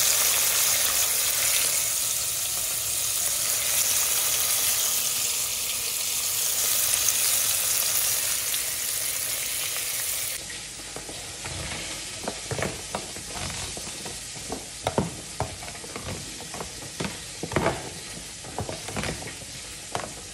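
Catfish pieces sizzling as they fry in oil in a kazan, a steady loud hiss. After about ten seconds this cuts to a spoon stirring chopped salad in a plastic container, with irregular clicks and scrapes.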